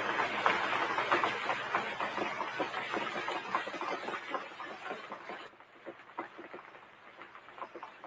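Fire crackling: a dense run of irregular snaps that fades steadily, dropping off sharply about five and a half seconds in.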